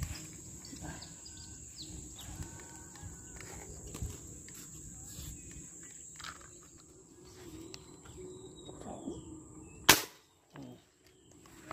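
A single sharp shot from a fishing airgun about ten seconds in, firing its spear into the pond, preceded by low rustling handling noise.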